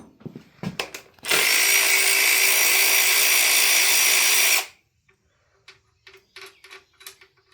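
A Bauer power tool from Harbor Freight runs at a steady speed for about three seconds while backing bolts out of an inline-six engine, then stops abruptly. Light clicks and clinks of parts being handled come before and after it.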